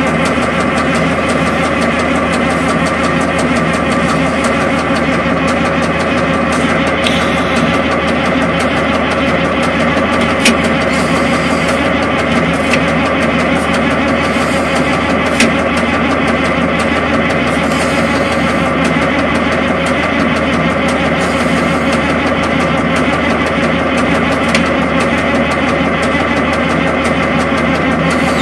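Big diesel engine idling steadily while still cold, shortly after start-up, with a couple of light clicks partway through.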